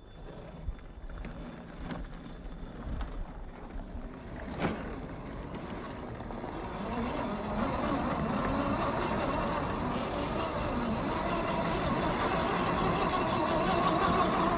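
1/10 scale RC crawler driving over rough ground, its 540 electric motor and gears whirring. It grows louder over the last several seconds, with a sharp knock a little under five seconds in.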